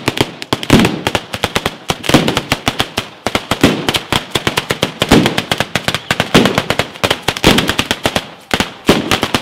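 Batteria alla bolognese: chains of firecrackers strung on wires between poles going off in a rapid, unbroken rattle of sharp bangs, with heavier, deeper reports about once a second.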